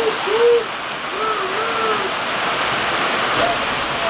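Steady hissing rumble of several three-rail model trains running on the layout. A toddler gives a few short, high-pitched vocal sounds over it in the first two seconds.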